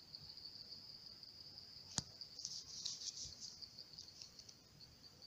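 Crickets chirping at night, a steady high-pitched pulsing trill, with a single sharp click about two seconds in and a louder, nearer burst of chirping just after it.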